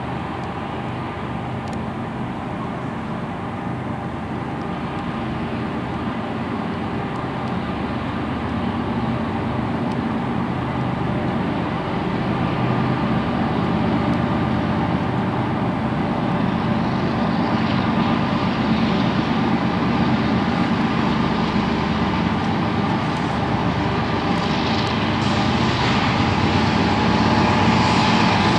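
Union Pacific diesel locomotives leading a loaded coal train, their engines running with a steady hum that grows gradually louder as the train draws nearer.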